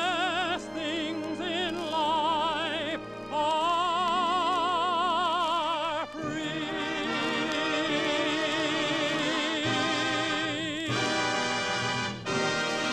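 Tenor voice singing with wide vibrato over an orchestra, the song's closing phrase. From about six seconds in, one long note is held until about eleven seconds, and then the orchestra plays the final bars.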